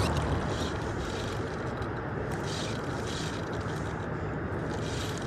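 Steady low rushing noise of moving river water, with no distinct events.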